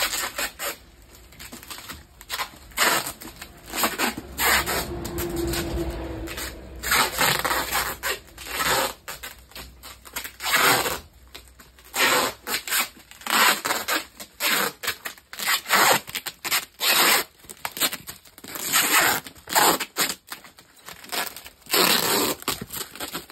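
Packing tape being pulled off its roll in a run of short, noisy rips and wound around plastic-wrapped parcels.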